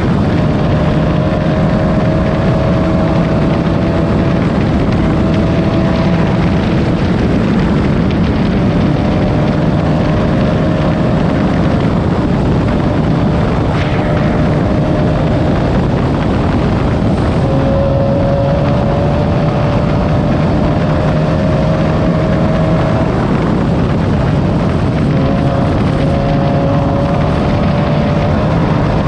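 Class 9 off-road race car's engine running hard at fairly steady revs, its pitch dipping and rising slightly as the throttle changes, under a loud, constant rushing noise.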